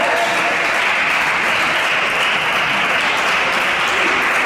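Spectators applauding steadily after a table tennis point is won.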